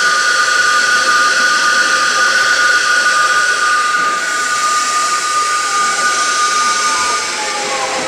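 A play train's air-horn train whistle blowing continuously: two steady tones over a hiss, held on because its switch is stuck. The tones break off and slide down briefly about seven seconds in.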